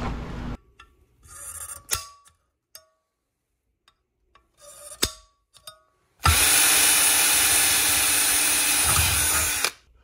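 A small die grinder's sanding disc stops just after the start, then come a few light handling clicks and taps. About six seconds in a drill runs steadily with a high whistle for about three and a half seconds, boring through an aluminum strip, and stops abruptly.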